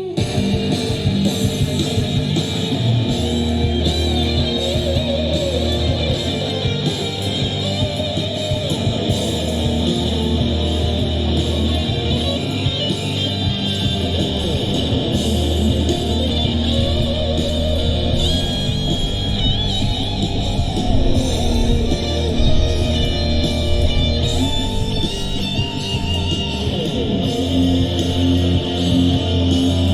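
Live rock band playing an instrumental passage: electric guitar over bass notes and regular drum hits.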